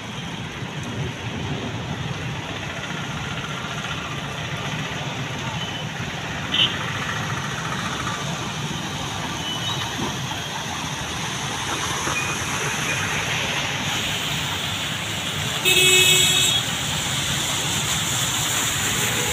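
Road traffic on a flooded street: motorcycles, auto-rickshaws and cars driving through the water as a steady wash of engine and water noise. A vehicle horn honks once for about a second near the end, the loudest sound.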